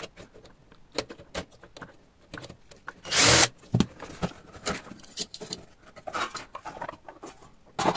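Plastic housing of a mini inverter welding machine being handled and pulled apart: scattered clicks, taps and knocks, with one brief loud noise about three seconds in.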